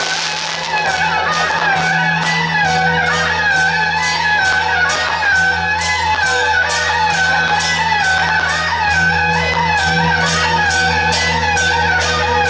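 Procession music: a wavering, bending melody over a steady beat of about two strikes a second, with a steady low hum underneath.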